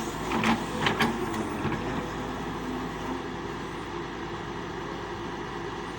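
Doosan DX140W wheeled excavator's diesel engine running steadily, with a couple of short knocks about half a second and a second in.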